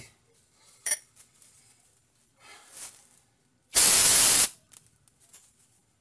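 A sharp metallic clink of a hand tool about a second in, then a short, loud burst of hiss lasting under a second.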